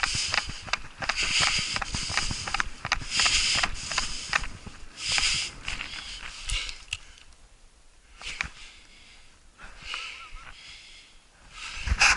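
Footsteps crunching in snow with heavy breaths from the hunter as he hurries along, a hissing breath about once a second. It grows quieter about halfway, and there is a thump just before the end.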